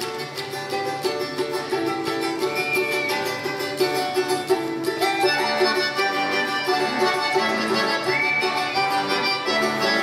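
Instrumental introduction to a Russian folk song on accordion and a strummed folk string instrument: sustained accordion chords under a quick, even strumming rhythm, beginning at the start and growing louder.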